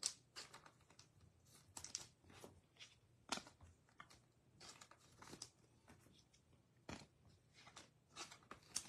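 Faint, irregular clicks and rustles of basketball trading cards being flipped through and handled.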